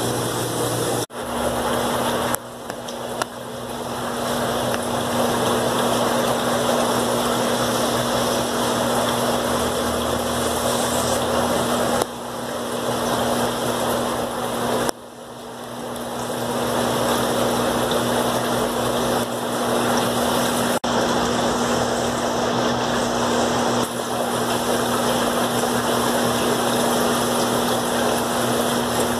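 Steady hum and hiss of aquarium air pumps and filters running, broken by a few brief dips and restarts.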